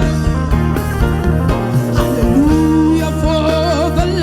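Gospel worship music from a band, with a steady beat under sustained low notes and a wavering melody line between sung phrases.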